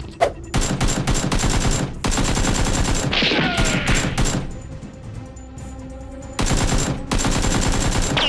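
Rapid automatic gunfire sound effects in long bursts, dubbed over a Nerf blaster fight, with a lull of about two seconds in the middle before the firing starts again.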